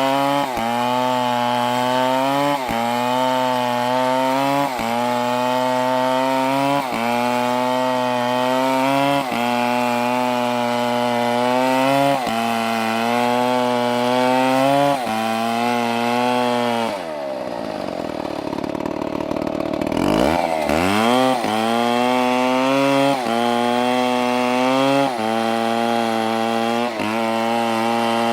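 Two-stroke STIHL chainsaw running at high revs, its pitch dipping briefly about every two seconds. About two-thirds of the way through it drops to idle for about three seconds, then revs back up.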